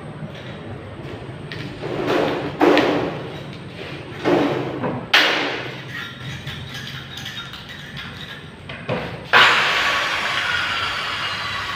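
Hand work on a galvanized iron sheet: a few short, sharp metal knocks and clatters, then steady rasping scraping from about nine seconds in.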